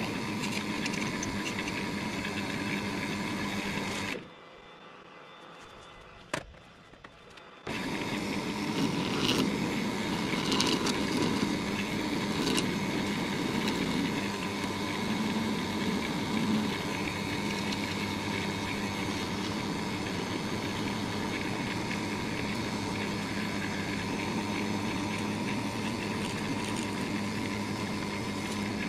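Woodturning lathe running steadily while a tool cuts a spinning blank of melted crayon wax into shavings. The hum and cutting drop away abruptly for a few seconds about four seconds in, with a single click, then come back, and the cutting is louder for a while after that.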